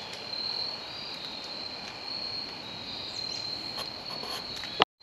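Insects trilling steadily in chorus: a high continuous trill with a fainter, lower one beneath it. The sound cuts off abruptly near the end.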